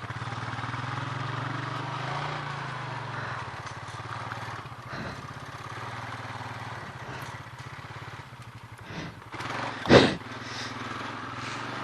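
Honda four-wheeler's engine running steadily at low speed, swelling slightly a couple of seconds in. About ten seconds in, one short, loud, sharp sound cuts across it.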